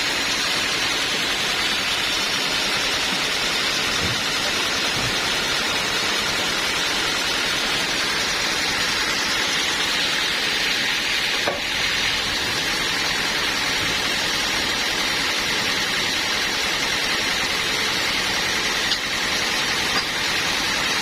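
Sawmill machinery running steadily, a constant hiss-like noise with no clear pitch, and a couple of faint clicks in the second half.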